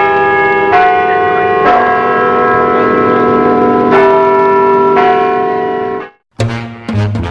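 Bells ringing, a new strike about every second with long ringing tones, stopping abruptly about six seconds in. Lively brass-band music with drums starts right after.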